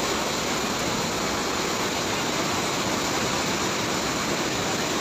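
Fast-flowing floodwater rushing past in a steady, even torrent.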